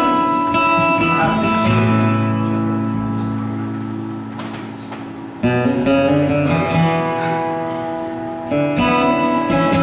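Acoustic guitar chords strummed and left to ring out, with a fresh strum about halfway through and another near the end.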